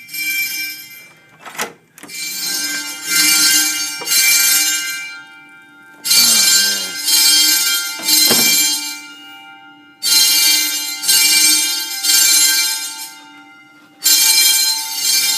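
Building fire alarm bell ringing in repeated groups of three pulses with a short pause between groups, the temporal-three evacuation pattern. A sharp click comes about one and a half seconds in, and a knock about eight seconds in.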